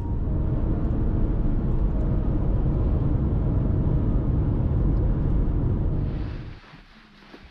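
Steady low rumble of a car driving on a highway, road and engine noise heard from inside the cabin, fading out near the end.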